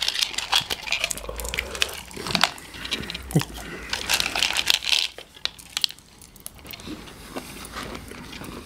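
Crinkling and rustling with scattered small clicks and knocks as two people handle plastic scoops and cram food into their mouths; it is busiest in the first five seconds and quieter afterwards.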